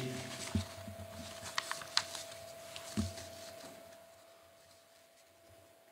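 Faint handling of paper pages at a lectern: a few light ticks and rustles in the first three seconds over a steady electrical hum, then fading to near silence.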